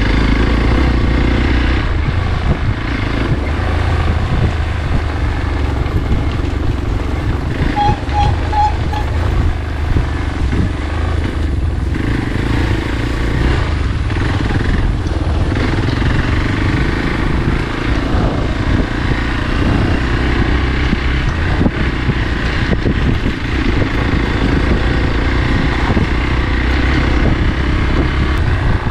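Motorcycle engine running steadily while the bike is ridden along a rough dirt trail.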